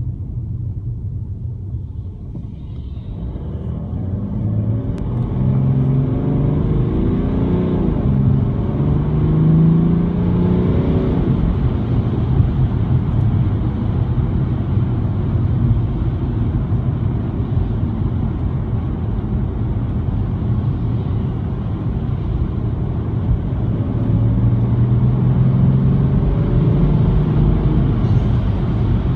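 BMW 335d E90's three-litre twin-turbo straight-six diesel heard from inside the cabin: running low and quiet at first, then accelerating with the engine note rising twice in quick succession, settling into a steady cruise, and rising again near the end.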